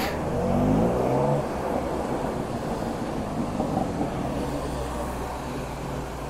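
Car engines as cars pull in. One engine rises in pitch as it accelerates during the first second or so, then a low engine note runs steadily.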